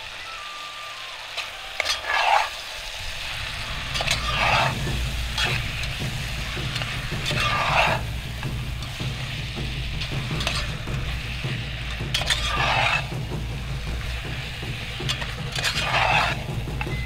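A metal spatula stirs and scrapes okra and tomato paste around a pot as the vegetables fry and sizzle, with about six scraping strokes a couple of seconds apart. A steady low rumble runs under the strokes from about a second and a half in.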